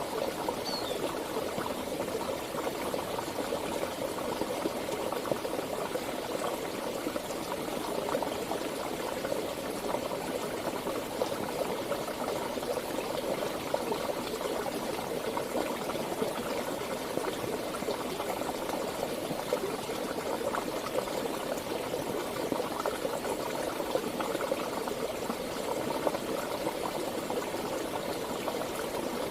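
Water of a stream running steadily, an even unbroken rush.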